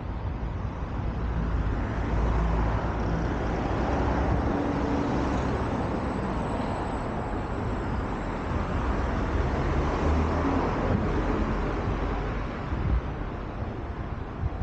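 Road vehicle noise: a continuous low rumble with a broad hiss, growing a little louder about two seconds in.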